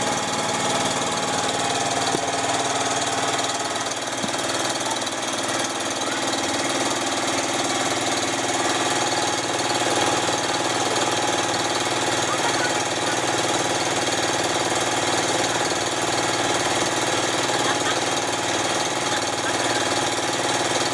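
An engine running steadily at an even pace, a constant mechanical drone with several steady tones over it and no change in speed.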